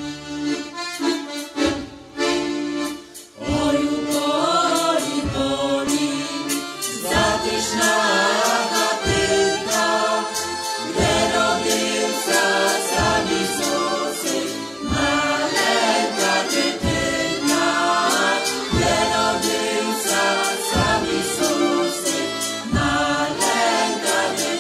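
A folk ensemble of men's and women's voices singing a song together, accompanied by a violin, with a deep beat about every two seconds.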